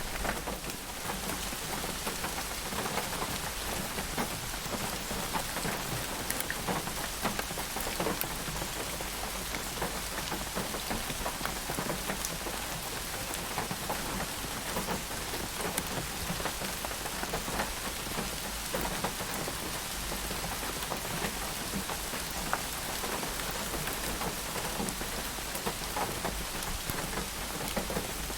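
Steady rain falling: a dense, even hiss with many separate drop impacts heard through it.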